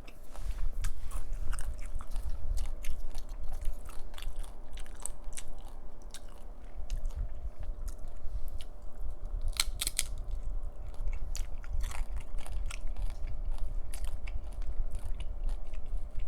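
Close-miked chewing and crunching of chips with salsa: many small crisp crackles throughout, with a louder cluster of crunches about ten seconds in.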